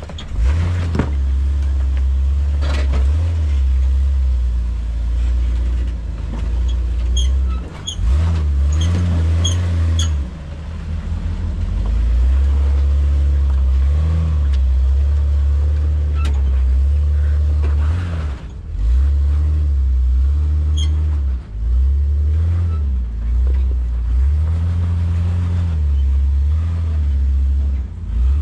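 Jeep Wrangler TJ/LJ engine running at low revs off-road, the throttle coming on and easing off again and again, with occasional sharp knocks from the vehicle as it moves over the terrain.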